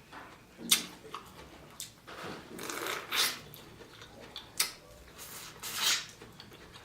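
A person eating a seafood boil close to the microphone: irregular short bursts of chewing and mouth noises, with a few sharp clicks.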